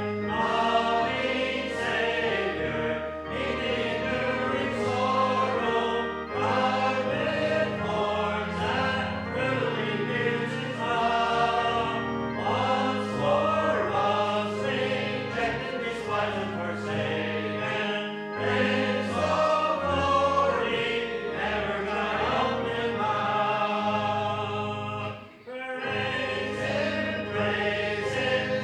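Congregation singing a hymn with steady instrumental accompaniment, pausing briefly between lines near the end.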